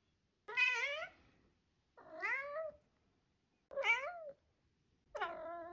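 Cat meowing four times, each meow about half a second long and rising then falling in pitch, with short pauses between.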